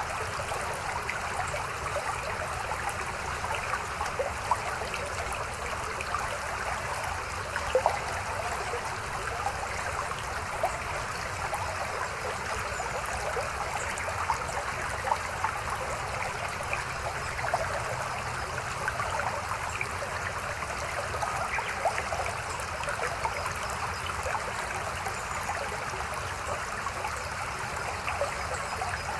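Shallow river babbling steadily, with small splashes standing out now and then.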